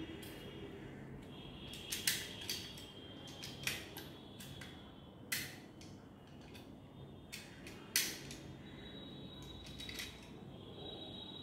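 Small hard parts of a drill kit being handled: scattered sharp clicks and light metallic clinks, about a dozen, with the loudest about eight seconds in.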